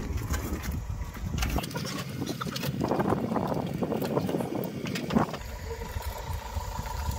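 Rusty, non-running old motorcycle rattling, clunking and scraping as it is pushed up a wooden board ramp into a van, with wind rumbling on the microphone at first. A faint steady hum comes in near the end.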